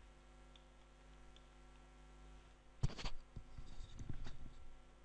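Steady low electrical hum of the recording setup. About three seconds in it is broken by a sharp knock, then about a second and a half of scattered knocks and rustling close to the microphone.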